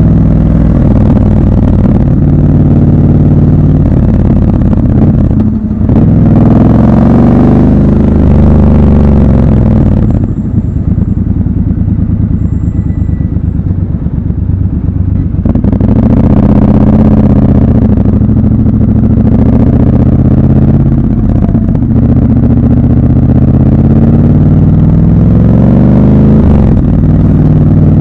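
Triumph Scrambler 1200 XC's 1200 cc parallel-twin engine pulling through the gears: the revs climb, drop briefly at each upshift and climb again. It runs quieter and lower in the middle, then pulls away again.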